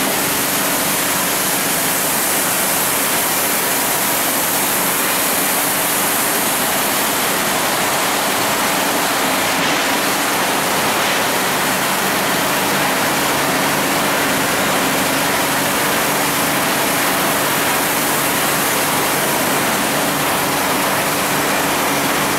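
Cashew-processing factory machinery running: a loud, steady rushing noise with a faint low hum underneath.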